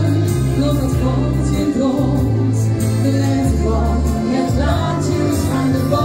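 A woman singing a pop song live into a microphone over a backing track with a steady bass line.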